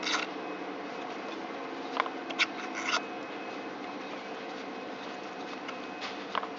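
A few short scratchy clicks and scrapes from hand-threading metal with a tap, over a steady low hum: once near the start, three around two to three seconds in, and one near the end.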